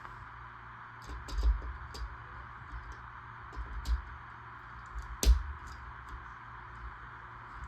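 Hard plastic LEGO Technic pieces clicking and knocking while being handled and pressed together, with the loudest, sharpest click about five seconds in. These are black connector pieces being forced into gray ones that resist going in. There is a steady hiss underneath.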